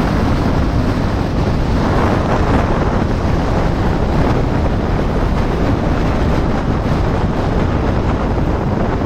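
Steady wind rushing over the microphone of a moving vehicle, with road noise underneath.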